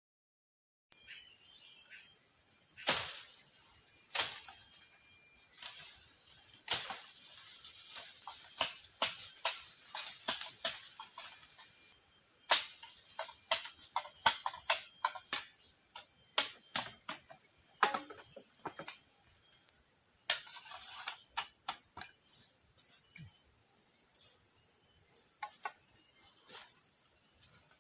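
Forest insects, crickets or cicadas, keeping up a steady high-pitched drone that starts about a second in. Irregular sharp knocks and snaps sound over it.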